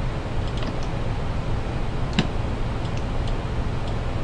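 A few scattered computer mouse clicks, the clearest about two seconds in, over a steady low hum.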